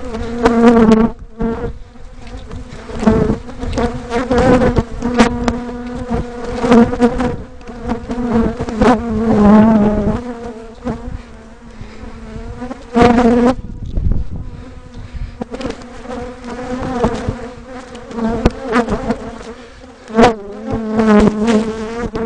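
A swarm of defensive Africanized honey bees buzzing loudly right at the microphone as they cover the camera. The buzz swells and fades and wavers in pitch, with scattered knocks, typical of bees hitting the camera in an attack pursuit.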